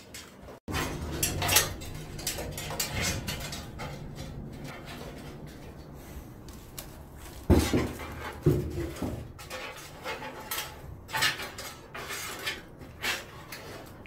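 Hands handling a steel PC case while pushing its front-panel wire harness through to the back: rustling, scraping and small metallic clicks, with two louder knocks about a second apart around the middle.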